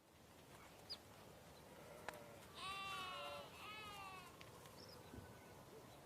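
Two bleats from a sheep or goat-type farm animal, one right after the other about two and a half seconds in, the second falling in pitch, over a faint background hiss.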